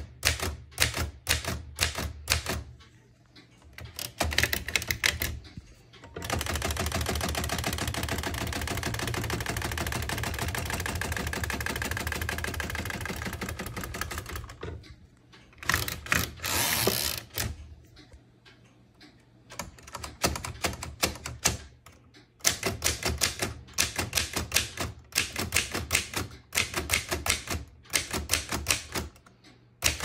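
Remington manual typewriter being typed on: bursts of sharp key strikes and typebar clacks, with a long unbroken run of rapid clatter through the middle. A louder, longer clattering sweep about halfway through sounds like a carriage return, after which brisk typing resumes.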